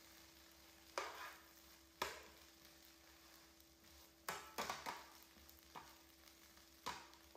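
Metal spatula scraping and knocking against a nonstick frying pan as it chops up and turns a pancake: scattered sharp clicks and scrapes, with a quick cluster of them about halfway through.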